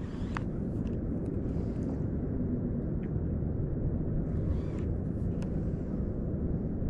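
Steady low wind and water noise out on open water, with a few faint ticks.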